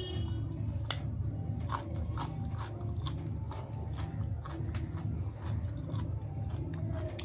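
A person chewing and eating food close to the microphone, with many short, sharp mouth and teeth clicks over a steady low hum.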